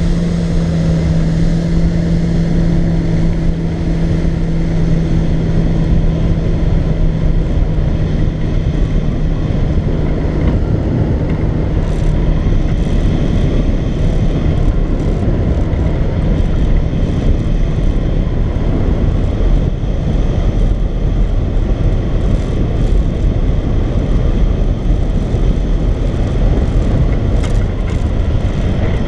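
Steady wind rushing over the microphone of a camera mounted on a hang glider climbing on tow. The tow boat's engine hum is heard under it at first and fades out about halfway through as the glider pulls away.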